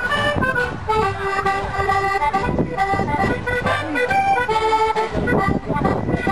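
Accordion-led Scottish country dance music playing steadily, a tune for the dancers, with some low rumbling noise at times.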